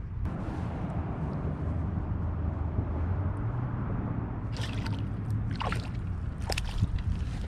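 Light splashes and drips at the pond surface where the baited fishing line sits: a few short ones from about halfway through, over a steady low rumble.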